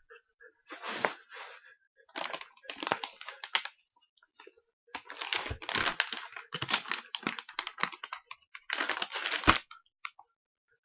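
Plastic cups being shuffled and slid about for a shell game, in four bursts of scraping and clacking; the longest lasts about three seconds.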